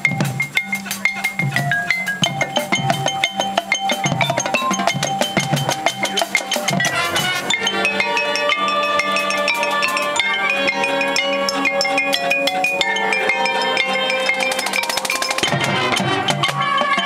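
High school marching band playing its field show: drums and front-ensemble mallet percussion such as marimba carry the first half with quick strikes and melodic notes, then held, full chords come in about halfway and continue with the percussion.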